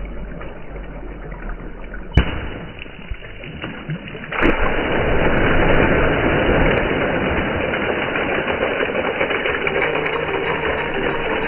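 Water balloon bursting: a sharp pop about two seconds in, then a second pop at about four and a half seconds followed by a steady rush of splashing water.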